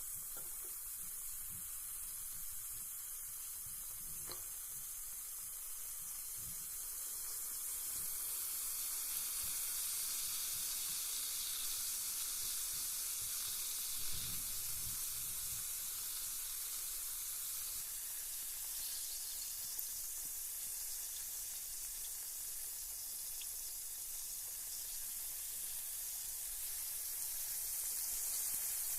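Carbonated bath bomb fizzing in bath water: a steady fine hiss of tiny bubbles with a faint crackle, growing a little louder about eight seconds in.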